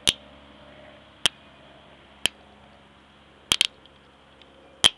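Hydroxy (HHO) gas bubbles from a homemade electrolysis cell popping sharply as a lighter flame ignites them: small explosions of the self-oxygenated hydrogen–oxygen mix. There are about six pops roughly a second apart, two of them in quick succession about three and a half seconds in.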